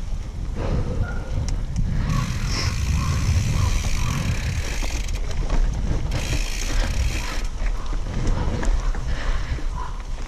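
Mountain bike ridden up a packed-dirt trail: tyres rolling over the dirt and the bike's parts rattling and clicking, with wind rumbling on the microphone.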